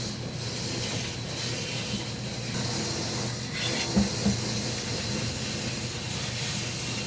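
Steady motor hum with a hiss, with two sharp knocks about four seconds in.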